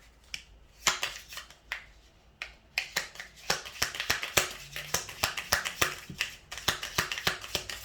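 Oracle card deck being shuffled by hand: crisp flicking clicks of the cards, a few scattered at first, then coming quickly and densely from about three seconds in.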